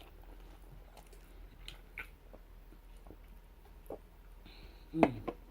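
A person chewing a burger with the mouth close to the microphone: faint, scattered smacking and clicking chewing sounds, with one louder mouth sound about five seconds in.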